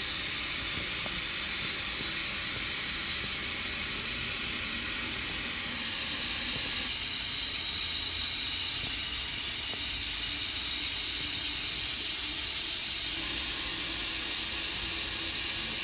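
Helium from a tank's balloon inflator valve rushing into a balloon: a steady hiss.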